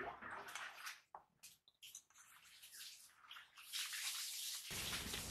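Fingers kneading and mixing rice with radish curry in a steel bowl: irregular wet squishing and scraping, louder for about the last second and a half.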